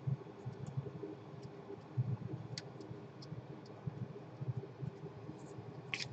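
Faint scattered clicks and light knocks from handling a flux syringe and small tools at a repair bench, with a sharper double click near the end.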